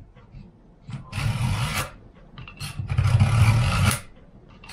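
Serrated knife drawn twice through a Vulkanus pull-through knife sharpener, each pull a scraping rasp of about a second, sharpening the blade's serrations.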